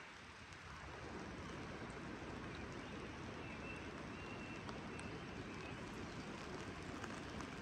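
Steady rain falling: an even hiss with scattered ticks of single drops, a little softer for the first second.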